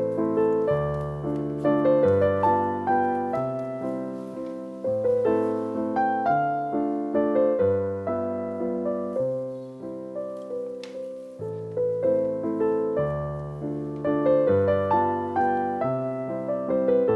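Background piano music: a melody of changing notes over lower bass notes.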